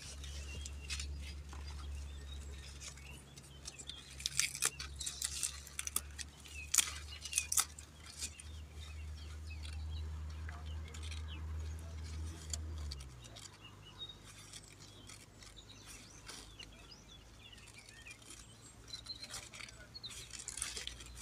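Hands digging into loose garden soil to plant pepper seedlings, with faint crackling and rustling of dirt and leaves, busiest in the first half. A steady low hum sits underneath and drops away about two thirds of the way through.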